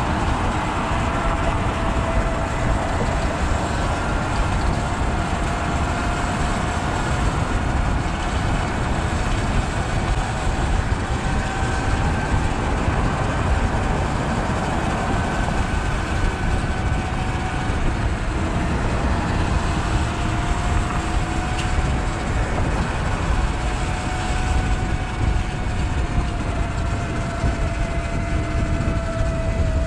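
Sur Ron electric dirt bike's motor whining steadily while riding, its pitch drifting slightly up and down with speed, over a constant low rumble.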